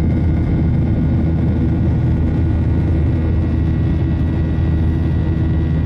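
Cabin noise of a Boeing 737-800 climbing out after takeoff: the steady rumble of its CFM56-7B turbofan engines and the airflow, with a faint steady high tone.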